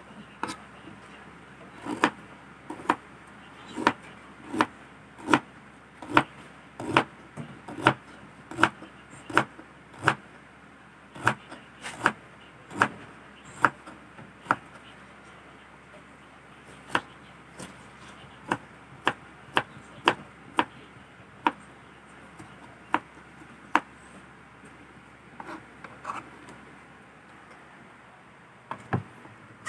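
Kitchen knife slicing ginger root on a cutting board: a steady run of sharp knocks, a little more than one a second, for about the first fifteen seconds, then slower, more scattered strokes that die out.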